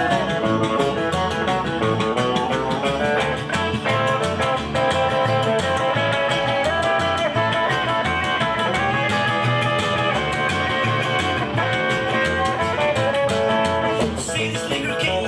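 Live band playing an instrumental break with a guitar taking the lead over a steady beat.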